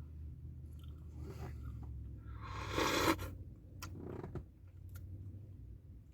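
A person chewing a mouthful of Blizzard ice cream with crunchy frosted animal cookie pieces. A brief louder noisy sound comes about halfway through, then a few smaller ones.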